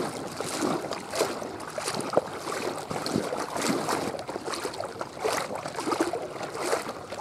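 Water splashing and sloshing in quick, irregular strokes, from movement through shallow lake water.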